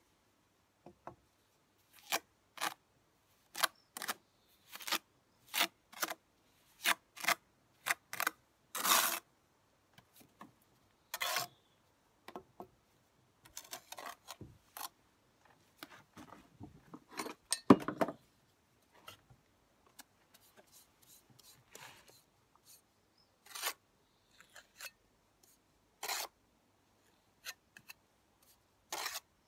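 Steel trowel scraping along fresh mortar joints in brickwork: a run of short, separate strokes, with a quieter patch of rubbing and one sharp knock past the middle.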